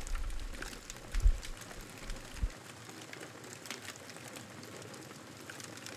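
Brush and debris pile burning, crackling with scattered sharp pops over a steady hiss. A low rumble with a thump about a second in runs under the first couple of seconds and then stops abruptly.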